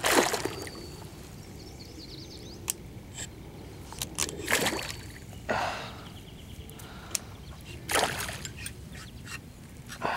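Hooked northern pike thrashing at the surface beside the kayak while being fought on the line: water splashing in short bursts, at the start, twice around the middle and again near the end, with a few faint clicks in between.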